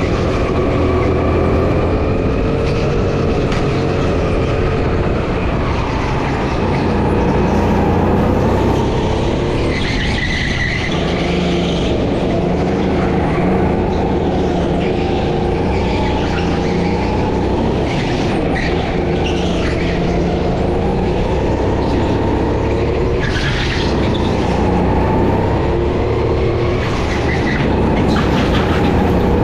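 Go-kart engine running continuously at racing speed, its pitch rising and falling as the kart accelerates and slows through the lap.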